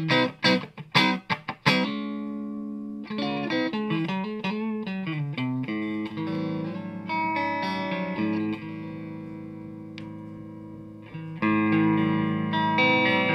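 Electric guitar, a Fernandes Telecaster with Gibson mini humbuckers, played through a Sollo Amps Mini 8 amplifier and a 1x12 cabinet with an Eminence GB128 speaker, recorded dry. Short choppy chords for the first couple of seconds, then single notes with a bend, a chord left to ring and fade, and a fresh loud chord struck about eleven seconds in.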